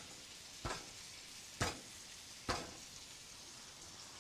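Garlic cloves being smashed on a wooden cutting board: three sharp knocks, about a second apart, over a faint steady hiss.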